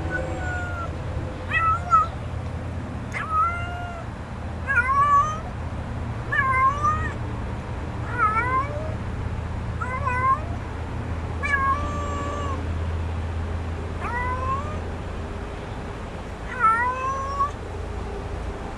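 Young stray kitten meowing over and over, about ten short high meows, one every second or two.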